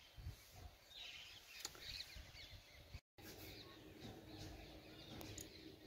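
Near silence: faint outdoor background noise with a few faint high chirps, and a brief dropout about three seconds in.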